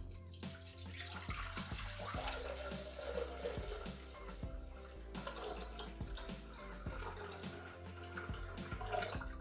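Water pouring steadily from a plastic measuring jug into the stainless-steel bowl of a Bimby (Thermomix) TM6, a faint continuous trickle and splash. It is a litre of water filling the bowl for the machine's self-cleaning cycle.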